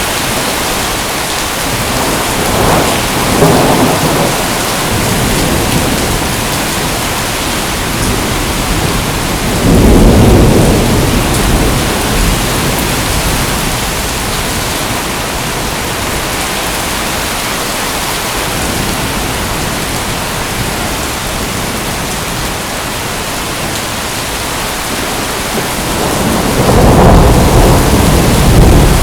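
Steady rain falling, with rolling thunder rumbling up three times: a few seconds in, loudest about a third of the way through, and again near the end.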